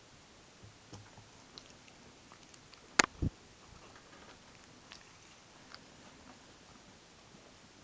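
Faint scratching and ticking of Siamese kittens play-fighting on carpet, with two sharp knocks close together about three seconds in.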